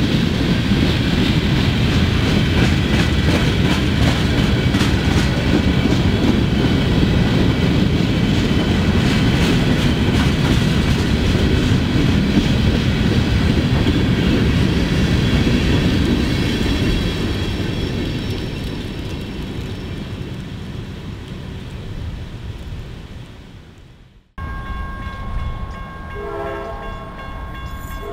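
Freight train's coal hopper cars rolling past close by: a steady rumble with wheels clicking over the rail, fading away as the end of the train goes by. After a sudden cut, a train horn sounds, broken into several blasts near the end.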